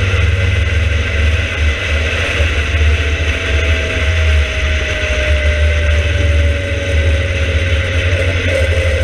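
Open-cockpit sports car driving at speed on a race track: engine and road noise under heavy wind buffeting on the microphone, with a thin whine that slowly drops in pitch.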